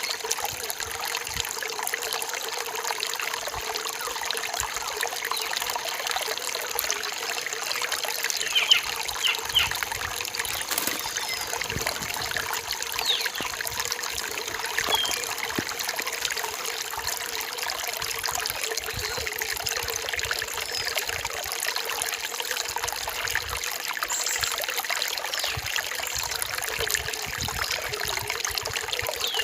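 Forest stream trickling steadily, with a few short bird chirps about nine seconds in.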